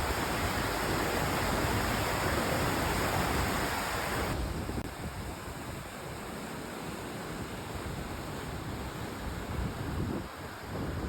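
Steady rushing noise of wind and water in the aftermath of a typhoon. It turns abruptly quieter and duller about four seconds in.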